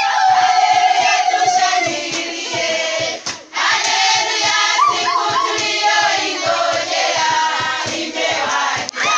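A group of women singing together over a steady low beat of about four to five beats a second. The sound drops out briefly twice.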